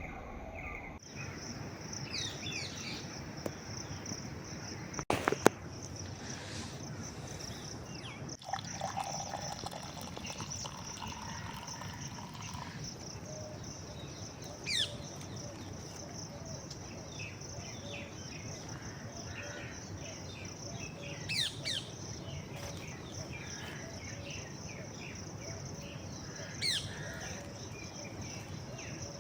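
Outdoor ambience of birds giving short chirps now and then over a steady high-pitched insect drone, with one sharp knock about five seconds in.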